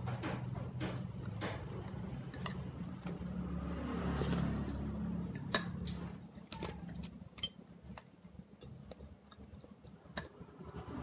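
Close-up mouth sounds of chewing soft bread with dal, with sharp clicks of a metal spoon against a small glass bowl and plate. A low hum sits under the first half and fades about six seconds in.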